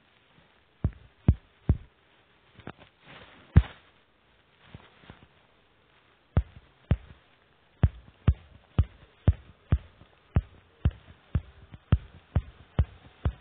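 Soft, short thumps of a fingertip tapping and flicking on a smartphone touchscreen, picked up by the phone's own microphone. A few come irregularly at first, then a steady run of about two a second from about halfway through.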